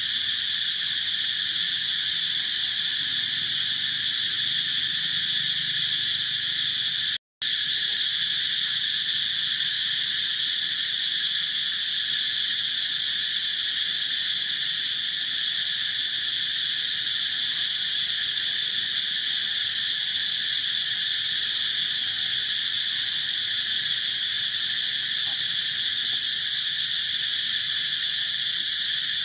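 Dense, steady chorus of insects buzzing, a continuous high hiss with no breaks in rhythm, cut off for a split second about seven seconds in.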